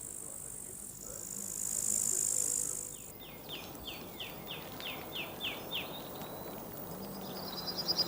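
Outdoor nature ambience: a steady high insect buzz, then a bird singing a quick series of about nine down-slurred notes, and a fast trill near the end.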